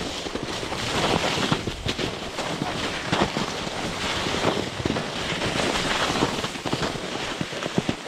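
Plastic sled sliding down a snowy track: a continuous scraping hiss over the snow, broken by many small crunches and knocks as it runs over bumps and twigs.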